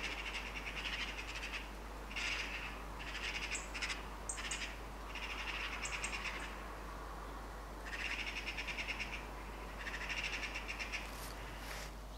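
Magpies and jackdaws calling in alarm: harsh, rapid chattering in repeated bursts of a second or so each, the flock agitated after one of them was shot.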